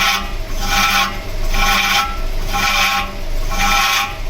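A car's brake scraping in a rhythmic, ringing grind that swells about once every 0.7 s as the wheel turns. It is the sign of a stone caught in the brake, rubbing against the rotor.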